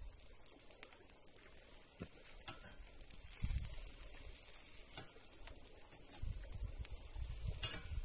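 Burger patties sizzling on a cast-iron grill grate over an open fire, with scattered small crackles and a brief scrape near the end.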